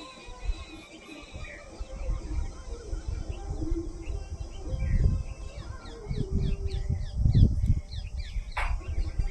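Small birds chirping over and over in quick high notes, thickest in the second half, over a low, uneven rumbling noise.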